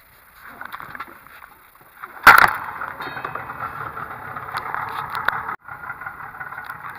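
Boat's outboard motor starting: one loud burst about two seconds in as it catches, then running steadily at idle.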